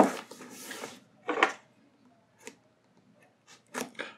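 Cardboard shipping box being handled and its tape cut open with a small cutter. A rough scrape in the first second, then a few short, sharp scratches and clicks.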